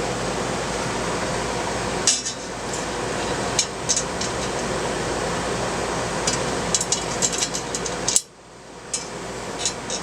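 Small metal parts clinking and tapping as mounting brackets and screws are handled, scattered clicks that come thickest in the last few seconds, over a steady background noise that drops away suddenly about eight seconds in.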